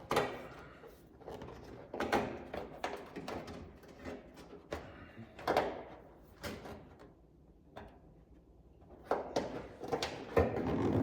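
Scattered knocks, clunks and scrapes of car body parts and bolts being handled and worked into place while fitting a front spoiler, with a quick cluster near the end.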